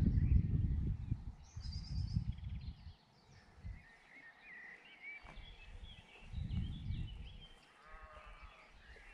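Wind buffeting the microphone in gusts, with birds chirping in the background and a short animal call near the end.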